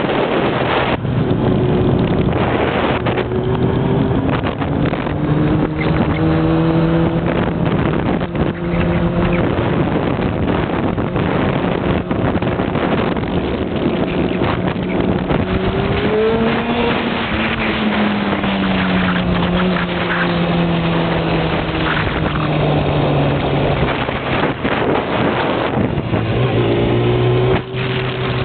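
Motorcycle engine running as it rides along a road, its pitch holding steady, then rising and falling with speed and dropping lower near the end, with wind buffeting the microphone.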